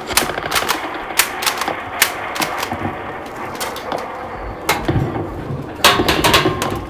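Scattered sharp clicks and knocks at irregular intervals, some in quick runs, from a play fight with toy guns; a denser, louder cluster comes about six seconds in.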